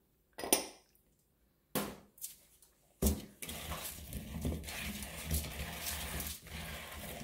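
Hands tossing small oiled potatoes in a plastic mixing bowl to coat them in oil, salt and parsley: a continuous wet rustling, with potatoes knocking against the bowl. It starts about three seconds in, after two brief sounds.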